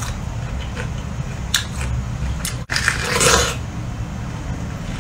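Biting into a ripe peach and chewing. A louder juicy crunch of a bite comes about three seconds in, over a low steady hum.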